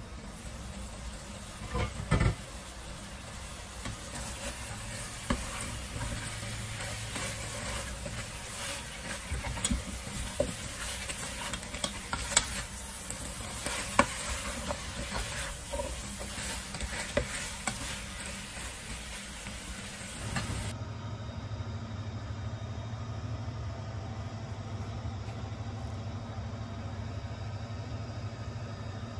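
A glass lid is lifted off a stainless steel pot with a clank about two seconds in, then a spatula stirs braised chicken and chestnuts, scraping and tapping against the pot while the thick, reduced sauce sizzles. After about twenty seconds the sound changes abruptly to a steady low hum.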